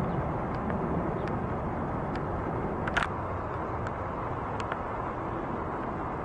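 Jet airliner climbing out high overhead: a steady, distant low rumble from its engines, with a sharp click about three seconds in and a few faint high ticks.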